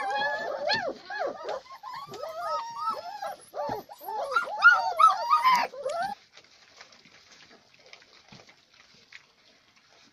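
A litter of German shepherd puppies whining and yelping together, many short calls overlapping; they fall quiet about six seconds in.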